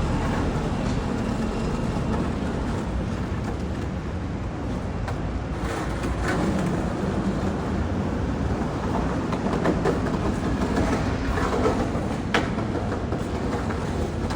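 A moving vehicle's steady low rumble, with a few sharp clicks over it about six and twelve seconds in.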